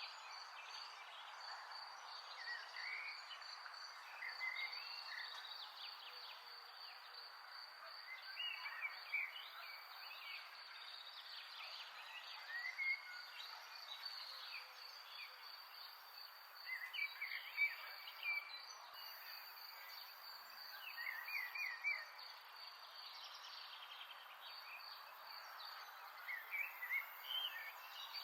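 A high insect trill, steady and finely pulsing, in a natural soundscape, with short chirping calls from birds or frogs breaking in every few seconds, in clusters.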